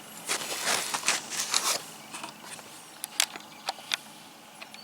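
Rustling as packaging and cards are handled, then a few sharp clicks and taps about three to four seconds in.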